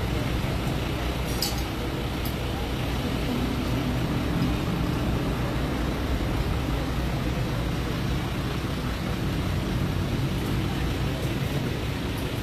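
Steady low rumble of an idling engine and street traffic, running evenly throughout.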